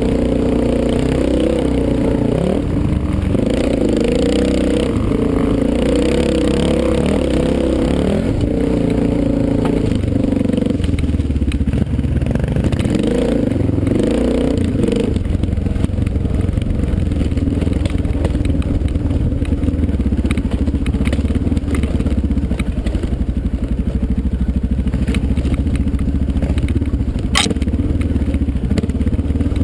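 Dirt bike engine under way, its pitch rising and falling with the throttle and gear changes for about the first fifteen seconds, then running at a steadier pitch. A sharp knock sounds once near the end.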